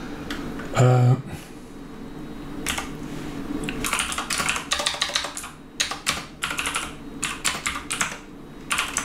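Computer keyboard keys being typed in quick irregular runs of clicks, starting a few seconds in.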